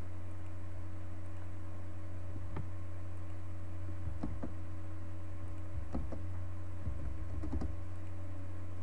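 Steady low electrical hum, with a handful of scattered computer mouse and keyboard clicks, a pair of them close together about four seconds in.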